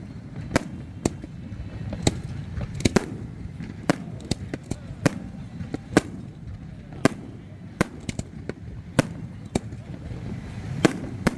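Aerial fireworks exploding: about twenty sharp bangs at irregular intervals, some close together, over a steady low rumble.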